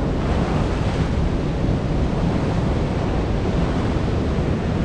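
Heavy ocean surf breaking and washing over a rock shelf, a steady rushing roar, with wind buffeting the microphone.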